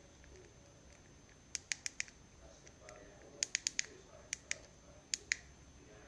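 Fidget cube's click buttons being pressed: sharp, short clicks in quick runs, four in a row about a second and a half in, five in a row about halfway, then two pairs near the end.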